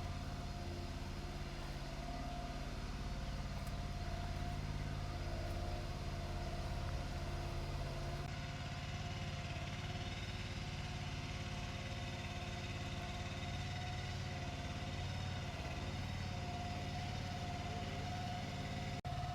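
A vehicle engine running steadily at idle, with an unchanging low hum, dropping out for an instant near the end.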